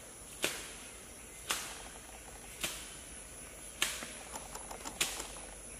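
Five sharp knocks or splashes, about one a second, each dying away quickly, over a steady high-pitched insect drone.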